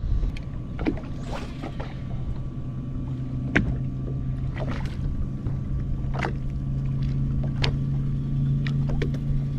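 Steady low hum of a bass boat's motor, growing a little louder after a few seconds, with scattered light knocks.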